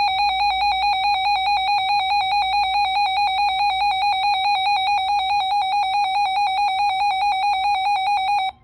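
Weather radio receiver's built-in alert alarm: a loud, rapidly pulsing electronic beep that runs steadily and cuts off abruptly just before the end. It is set off by a newly received severe thunderstorm warning.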